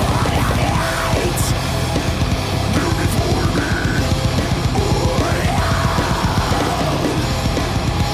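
Heavy metal music played loud and without a break: distorted electric guitars over fast, driving drums.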